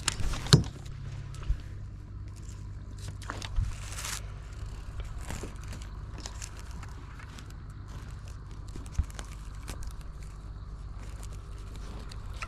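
A steady low hum under scattered small clicks and knocks from fishing tackle being handled on a kayak as a lure is reeled in, the loudest knock about half a second in.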